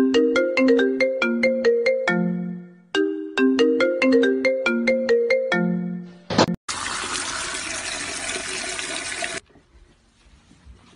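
A marimba-style ringtone melody, quick struck notes that ring and fade, played in two phrases. It is followed by a sharp crack and a loud rushing hiss of about three seconds that cuts off suddenly.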